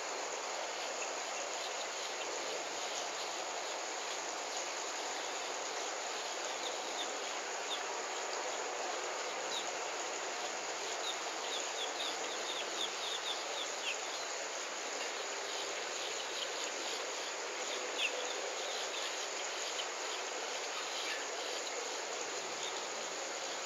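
Outdoor ambience of a steady insect chorus hiss, with short high chirps coming in a quick run in the middle and once more later.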